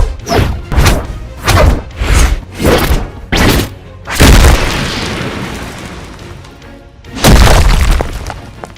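Designed cinematic superhero fight sound effects: a quick run of about six sweeping punch-like hits, then a heavy boom about four seconds in that dies away slowly as a long rumble, and another heavy boom near the end.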